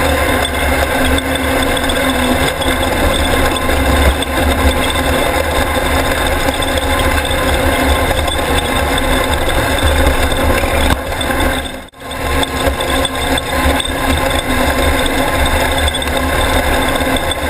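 Class 1600 off-road race car's engine running steadily while the car drives the dirt course. The sound drops out sharply for a moment about twelve seconds in.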